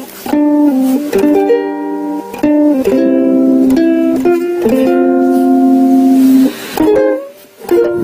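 Ukulele playing a melody of pitched notes, some held for about a second, with a brief drop in level about seven seconds in.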